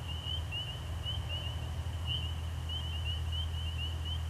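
Chorus of spring peeper frogs: short, high, rising peeps repeating over and over, over a steady low hum.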